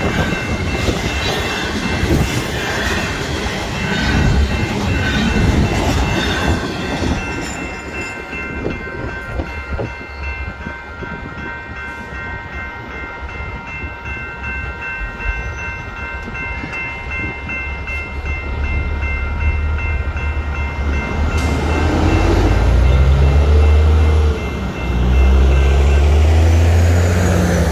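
Last cars of a BNSF double-stack intermodal train rumbling and clattering over the road crossing, fading out after about seven seconds, while the grade-crossing bell rings steadily. The bell stops about two-thirds of the way through, and a semi truck's diesel engine pulls away across the tracks, revving up through its gears.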